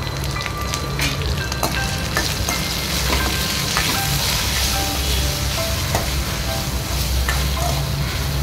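Brinjal, onion and green chilli frying in oil in a stainless steel kadai while a steel spoon stirs them, with repeated clinks and scrapes of the spoon against the pan as salt and turmeric are mixed in.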